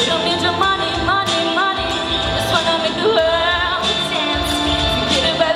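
A girl sings a song into a handheld microphone over recorded backing music, amplified through stage speakers. Her held notes bend and waver over a steady low beat.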